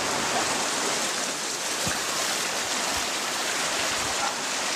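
Swollen river in flood, its water rushing steadily.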